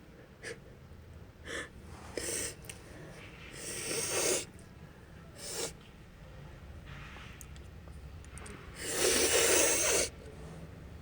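A woman with a runny nose sniffing and sneezing: several short sniffs, a louder burst that swells and breaks off about four seconds in, and the loudest, second-long burst near the end.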